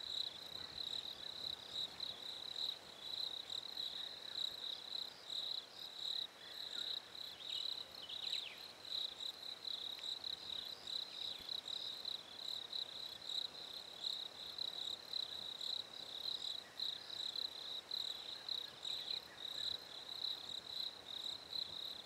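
Crickets chirping in a steady, high, pulsing trill.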